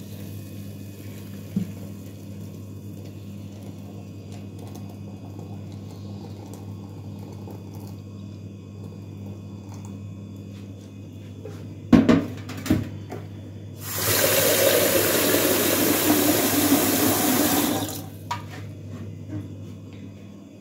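Kitchen tap running into the sink for about four seconds, starting about two-thirds of the way in. A couple of clanks come shortly before it, over a steady low hum.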